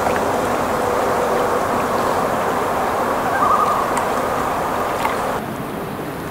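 Common loon calling faintly across the water: a thin held note about half a second in and a short wavering tremolo about three and a half seconds in. Both are set against a steady rush of wind and choppy water.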